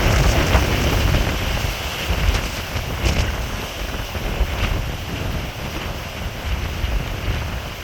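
Strong sea wind buffeting the microphone in uneven low rumbles, with the rush of wind-driven waves behind it.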